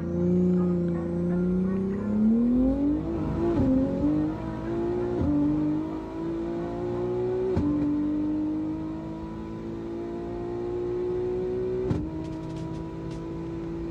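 A car engine accelerating hard, its pitch climbing steeply and then falling briefly at each of three upshifts, about five, seven and a half and twelve seconds in, before pulling higher again.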